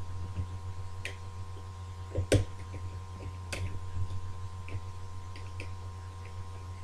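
Small sharp clicks and ticks of a pick working the levers of a British Standard ERA multi-slot lever lock, a few stronger clicks spaced about a second apart with the loudest a little over two seconds in, over a steady low hum.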